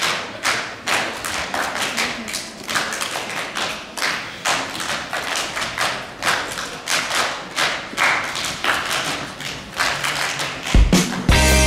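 A group clapping and slapping their laps together in a steady rhythm, in a body-percussion routine. About a second before the end, loud rock music with guitar comes in.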